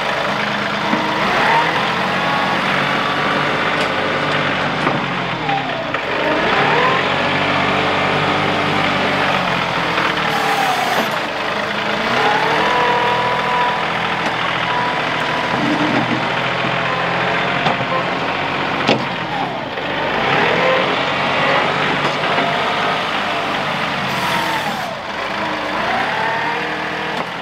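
A heavy diesel engine working under load, with a steady low drone and a higher whine whose pitch swings up and down every few seconds.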